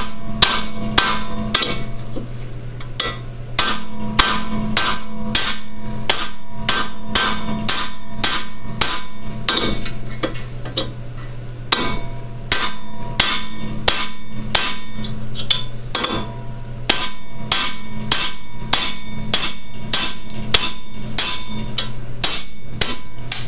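Big hammer striking a steel punch about twice a second, with a few short pauses, driving a seized steel bolt out of an aluminum suspension control arm. Each blow is a sharp metallic clang with a brief ring. A steady low hum runs underneath and breaks off a few times.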